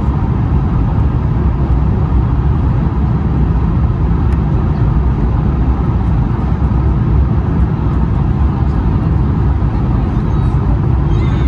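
Cabin noise of an Airbus A220-100 on final approach, heard from a window seat beside the wing: a steady, loud low rumble of airflow and its Pratt & Whitney PW1500G geared turbofan engines.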